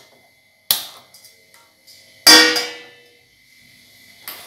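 Sharp clicks from a spark gas lighter at a gas stove burner, then a loud metallic clang with a ringing that dies away over about a second as a stainless steel pan is set down on the burner grate, about two seconds in.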